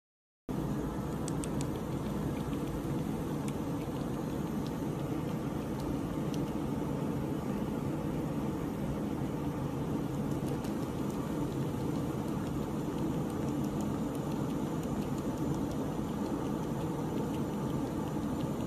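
Steady low rumbling background noise that starts abruptly about half a second in, with a few faint ticks in the first few seconds.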